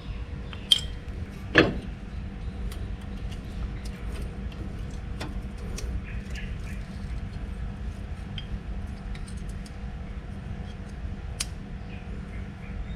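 Brake pads and their metal clips being fitted into a disc brake caliper bracket: scattered light metal clicks and ticks, with two louder knocks in the first two seconds, over a steady low background hum.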